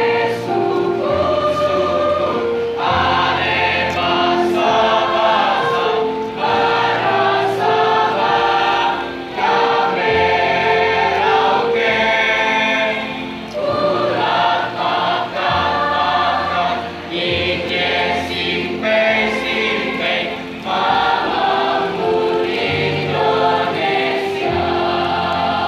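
Mixed-voice school choir of boys and girls singing, amplified through stand microphones, in phrases a few seconds long with brief breaks between them.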